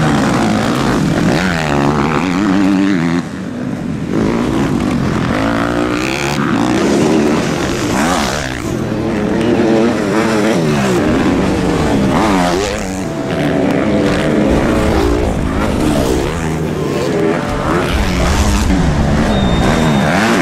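Motocross dirt bike engines at high throttle, their pitch climbing and dropping back again and again as the riders open and close the throttle.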